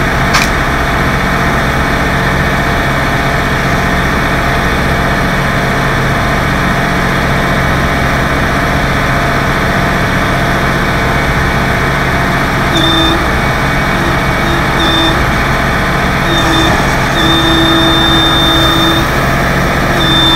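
Tow truck engine idling steadily, with a sharp click about half a second in. From about two-thirds of the way through, an on-and-off high whine comes and goes in irregular stretches over the hum.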